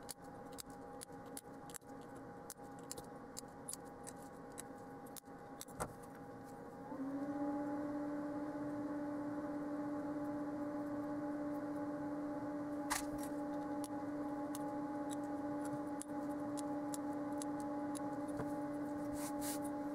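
Steady hum of the fans in a homemade fume extractor, with sharp snips from flush cutters clipping component leads off a circuit board during the first several seconds. About 7 s in, the hum steps up louder and a little higher in pitch, and a single click follows later.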